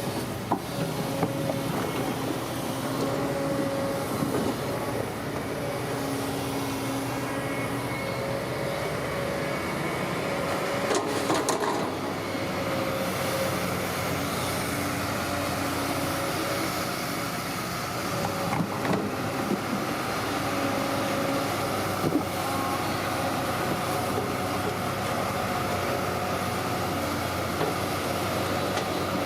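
Bulldozer running steadily, its diesel engine humming evenly, with a few sharp metallic clanks, around a third of the way in and again about two thirds in.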